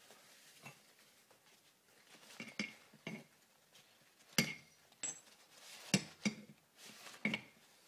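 Irregular sharp metal clinks and light knocks from the parts of a partly assembled Harley-Davidson early Shovelhead four-speed gearbox being handled, about nine in all, each ringing briefly, with two louder ones a little past the middle.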